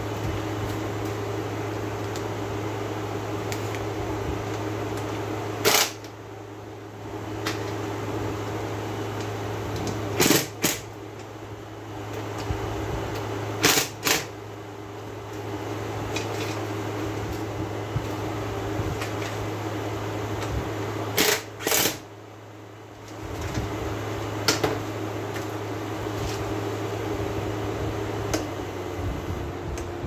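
Window air conditioner running, its fan blowing over a steady low hum, while its rotary control knob is clicked through its settings: sharp clicks four times, mostly in pairs, and after several of them the running sound briefly drops before picking up again. Right at the end it begins to wind down as the unit is switched off.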